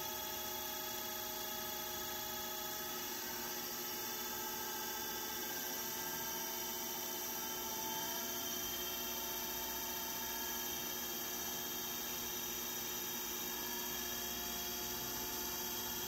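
A fan made from a hoverboard's brushless hub motor, spinning at high speed: a steady electric whine made of several tones that drift slightly in pitch, over a rush of air from the blade.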